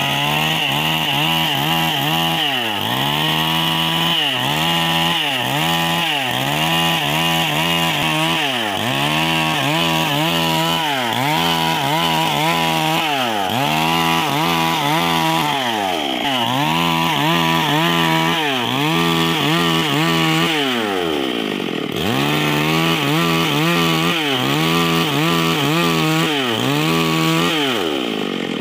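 Stihl MS 382 two-stroke chainsaw ripping a log lengthwise under load, its engine speed dipping and recovering about once a second as the bar is worked through the cut. Near 21 s the engine drops off for a moment before going back to full throttle, and it falls toward idle right at the end.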